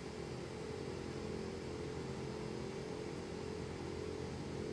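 Steady hum of industrial gear-machining equipment, a cluster of held tones over a constant hiss, that starts abruptly at the very beginning.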